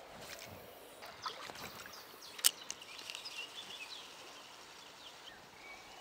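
Small river flowing steadily, with scattered clicks and knocks over it, the sharpest about two and a half seconds in.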